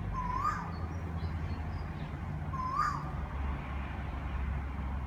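A loud bird calling twice, about two and a half seconds apart, each call a short note that sweeps up sharply in pitch. Faint high chirps come between the calls over a steady low rumble.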